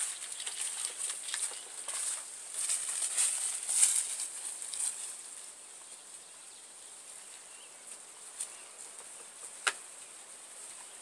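Outdoor ambience with irregular high rustling and crackling for about the first five seconds, then quieter, with a single sharp click near the end.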